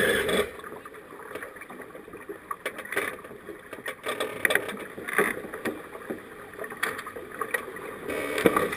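Water splashing and rushing along the hull of a small sailing keelboat under way, in uneven swells, with occasional short knocks and clicks.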